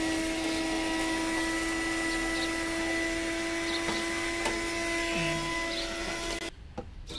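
Handheld electric power tool running steadily at full speed without load: a constant whine over a hiss. It cuts off suddenly about six and a half seconds in.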